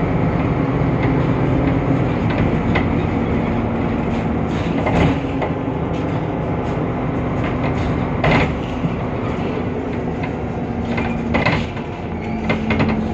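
Temsa Avenue LF city bus under way, heard from inside: the DAF PR 228 diesel and ZF Ecolife automatic gearbox drone with steady tones that shift in pitch near the end, over road rumble with scattered rattles and knocks.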